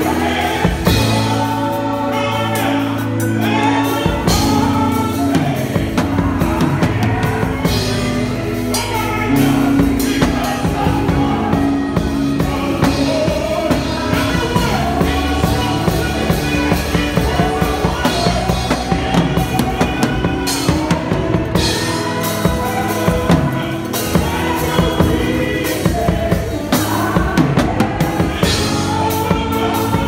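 Live gospel band with a drum kit played close at hand, steady beats on snare, toms and cymbals, under a lead singer's voice.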